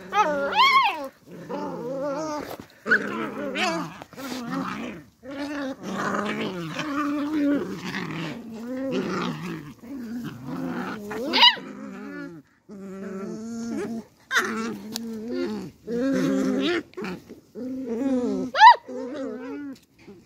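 Beagle puppies play-fighting, growling and grumbling almost without pause in short bouts. Two sharp, rising high yelps break in, about halfway through and near the end.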